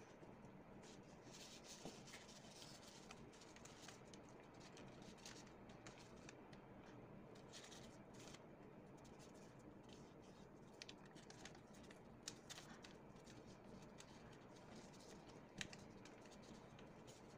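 Faint rustling and creasing of a sheet of paper being folded by hand, with many soft scratches and a few small taps.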